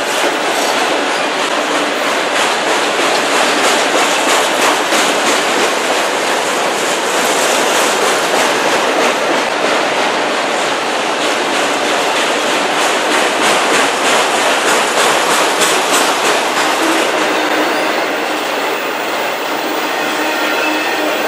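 Autorack cars of a freight train rolling past close by: a steady dense rumble of steel wheels on rail, with the quick clickety-clack of wheels over rail joints that thins out near the end.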